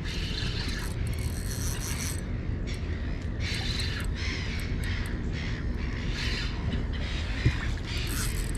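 Fishing reel being wound in short, irregular bursts while a hooked fish is played, over a steady low rumble.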